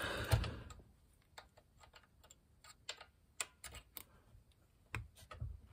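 Irregular small clicks and taps of metal parts being handled at a classic Mini's gear selector rod linkage, with short gaps of near silence between them.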